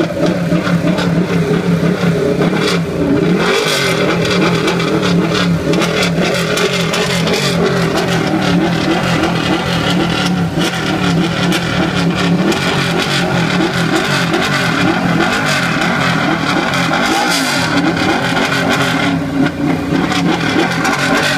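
Ducati Panigale 899's Superquadro V-twin engine running hard on the stand and being revved over and over, its exhaust loud throughout.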